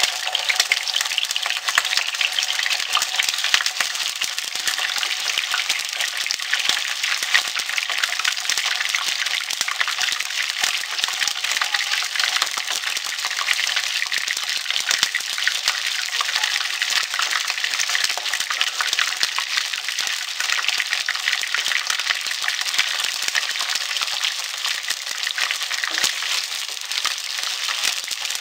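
Chicken skin frying in hot oil: a steady sizzle thick with small pops and crackles as the skin's moisture cooks off on its way to crisp.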